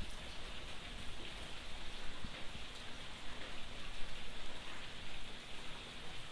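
Steady rain falling on trees and garden foliage: an even hiss of countless drops with no break.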